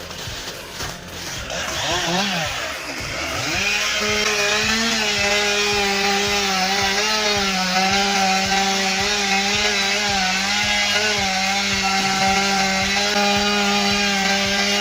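Chainsaw revving up over the first few seconds, then running steadily at high revs, as when cutting through wood.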